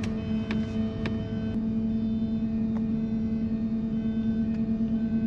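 Steady drone with a low rumble, as inside a van's cabin while driving at an even pace. A few faint clicks come in the first second or so.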